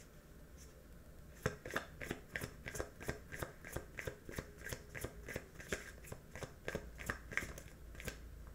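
A deck of cards being shuffled by hand: a run of quick, light slaps, about three or four a second, starting a second and a half in.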